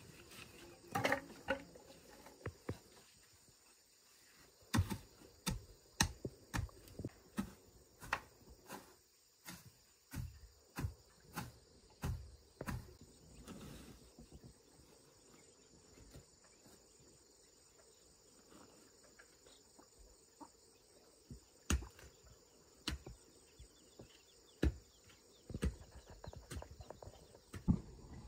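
Irregular knocks and thuds of a long-handled hoe striking the ground, at times one or two a second, with dry sticks rustling near the start. A faint steady high chirring of insects runs underneath.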